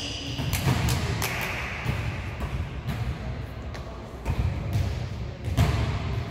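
Indoor volleyball being played in a gym: several sharp thuds of the ball being hit and landing, spaced irregularly over a steady low background din.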